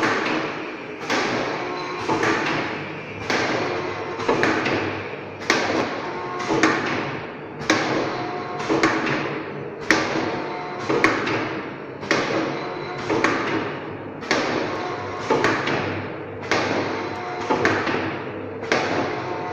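Sachet packing machine for hair dye, shampoo and cream running, with a sharp knock about once a second as its sealing and cutting jaws close on each sachet, each knock trailing off before the next, over a steady machine hum.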